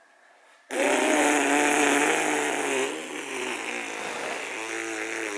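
A woman blowing a long, buzzing voiced lip trill (a motorboat-style raspberry) to play with a baby. It starts suddenly under a second in, and turns quieter with a change in pitch about halfway through.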